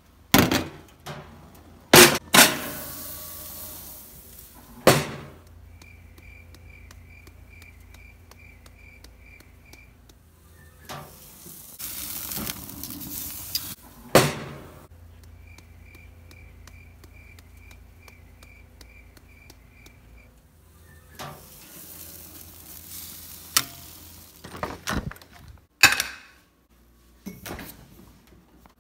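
Clanks and knocks from handling a gas grill and its lid, with stretches of sizzling. Two runs of steady short beeps, about two or three a second, and a refrigerator door opening near the end.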